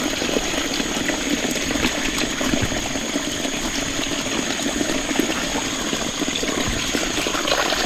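Rainwater runoff rushing steadily, swollen after a night of heavy rain.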